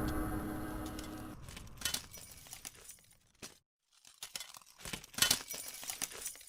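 Intro music fading out, then a few faint scattered clicks and rustles.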